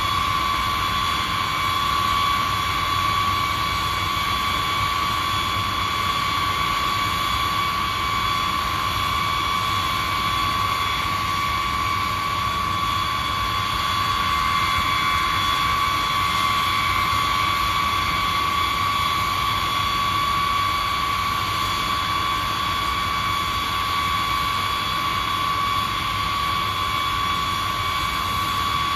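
Boeing B-52's eight turbofan engines running steadily on the ground, a high whine over a continuous rush that holds level throughout.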